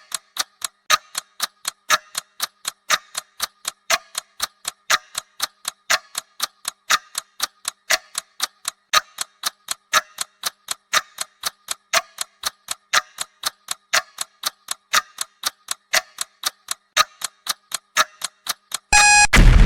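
Bomb-countdown timer sound effect: steady clock ticking, about two ticks a second, every other tick brighter in a tick-tock pattern. Near the end a short tone sounds, then an explosion blast begins, the loudest sound, marking the countdown reaching zero.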